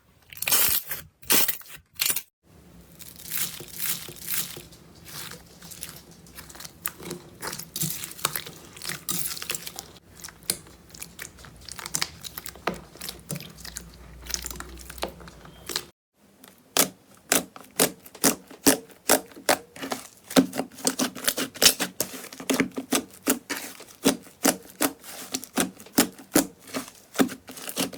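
Slime squished and pulled by hand, giving dense crisp crackles and sticky pops. It breaks off briefly twice, about two seconds in and again about sixteen seconds in, and after the second break the pops come in a quick, even run.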